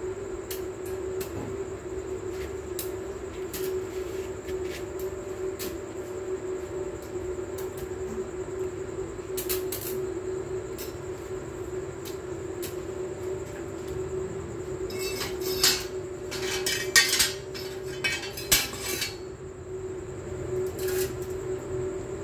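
Electric arc welding on steel bars: a steady hum with scattered crackles and clicks, and a run of louder sharp crackling bursts between about 15 and 19 seconds in.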